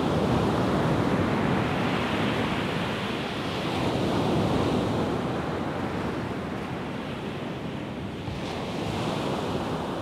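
Ocean surf breaking and washing up onto a beach: a continuous rush of waves that swells and eases about every four to five seconds.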